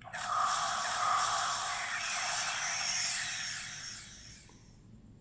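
Electronic sound effect from the small speaker of a DX Valgeness (Suzaku) star-stone kaiju toy: a harsh, noisy hiss with no bass. It starts at once, holds for about three seconds, then fades out over the next second or so.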